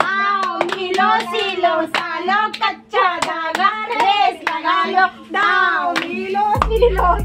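Women singing a clapping-game song with a toddler, with sharp hand claps through the singing. A low rumble comes in near the end.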